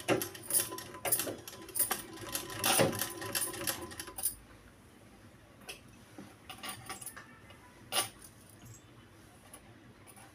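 Domestic sewing machine stitching in a short run, the needle clattering rapidly over a steady hum for about four seconds, then stopping. After it come a few faint clicks and one sharp click about eight seconds in.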